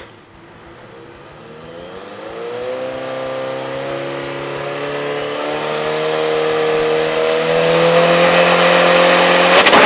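Race-prepared pickup truck's engine at full throttle on a drag-strip run. The engine note climbs in pitch over the first few seconds, then holds nearly steady while growing steadily louder, with a thin whine rising in pitch above it. A loud burst of noise comes near the end.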